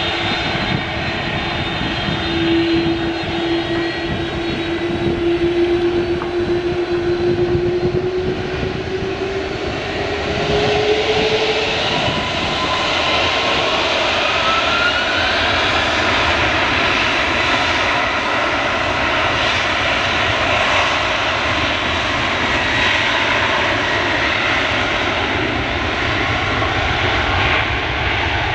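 Airbus A330-300's twin jet engines running as the airliner taxis: a steady loud rush with a whine that rises slowly in pitch over the first dozen seconds, and a second, higher whine that climbs briefly after that.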